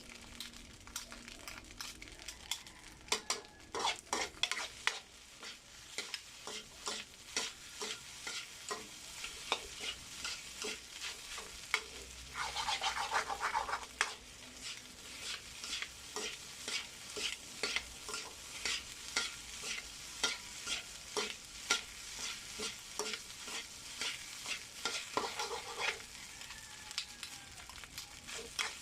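Fried rice with egg being stir-fried in a pan: a spatula scrapes and taps against the pan again and again over a low sizzle. There are two longer runs of scraping, one about halfway through and one near the end.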